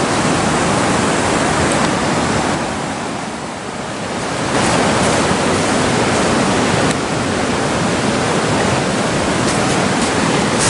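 Steady rushing noise of flowing river water, even and unbroken, easing slightly for a moment about three seconds in.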